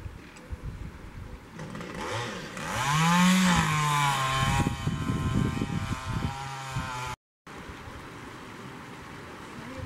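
A small motor engine revs up briefly, then runs at a steady pitch for a few seconds before cutting off abruptly about seven seconds in.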